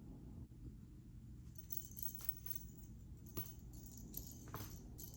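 A cat toy jingling and rattling in short, uneven clusters as the cat bats it about, starting about a second and a half in, with a couple of sharper clicks among them.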